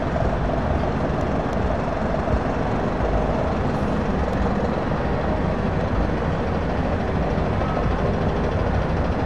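Diesel engine of a Mercedes-Benz rigid recovery truck running as it pulls slowly past at low speed, a steady low rumble with the engines of queued trucks behind it.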